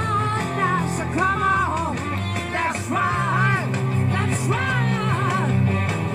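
Rock band playing live, with a man singing over the band.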